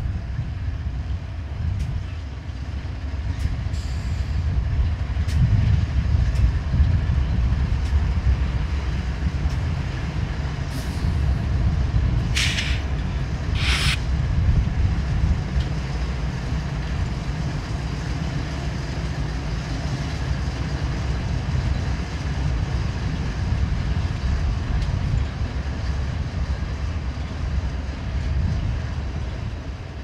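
Two BNSF diesel locomotives rumbling slowly past, followed by autorack cars rolling by, with strong wind buffeting the microphone. Two short hissing bursts stand out about halfway through.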